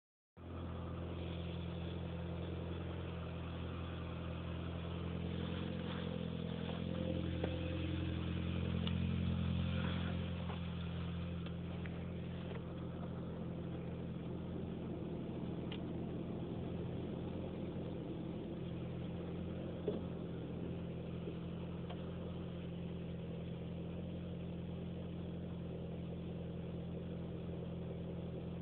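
Seat Ibiza Cupra engine idling steadily, its note swelling a little louder for a few seconds around seven to ten seconds in, then settling. A single sharp click about twenty seconds in.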